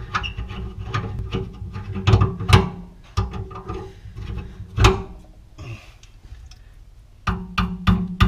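A screwdriver levering a rusted garbage disposal's metal mounting ring under a sink: irregular metal clicks, knocks and scrapes, with a cluster of louder knocks near the end.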